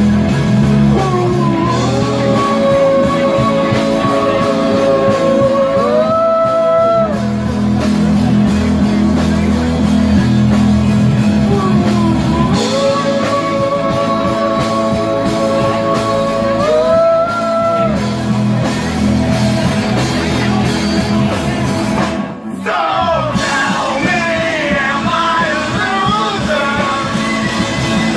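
Rock music: a band with guitar, and a long held melody line that slides up and back down twice. The music dips briefly about 22 seconds in, then carries on with a busier melody.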